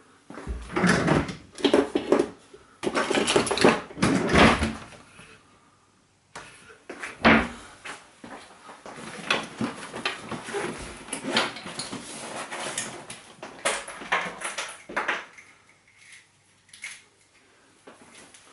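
Handling noise: knocks, clatter and rustling of things being picked up and moved about, heaviest in the first few seconds, with one sharp knock about seven seconds in and lighter clicks after it.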